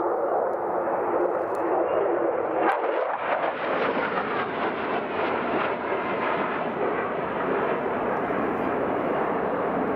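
Jet noise from an F-2 fighter's turbofan engine. It is a steady rush that grows brighter and harsher about three seconds in, then holds.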